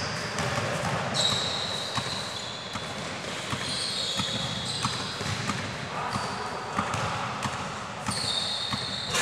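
Indoor futsal game in a large sports hall: the ball being kicked and bouncing on the court, with short high squeaks of shoes on the floor and players calling out now and then.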